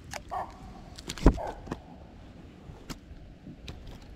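Handling noises in a fishing kayak while a small fish is unhooked: scattered light clicks and knocks, with one loud dull thump about a second in.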